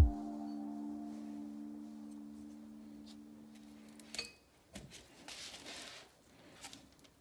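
A held chord of background music fading out over about four seconds. Then faint handling noises of the steel tools and wooden box: a light tap, a second knock, and a soft scrape.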